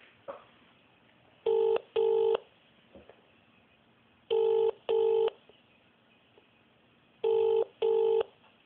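Telephone ringing tone heard down the line as a call waits to be answered: three double rings, each pair two short steady buzzing rings, about three seconds apart, in the British double-ring pattern.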